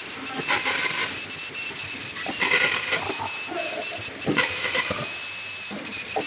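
Automatic triangle nylon tea bag packing machine running its cycle: a short hiss about every two seconds, with mechanical clicking and a faint steady whine between.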